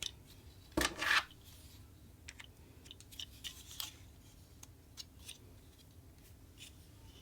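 Hands handling a plastic action figure and its packaging: a short, loud scraping rustle about a second in, then scattered light plastic clicks and taps.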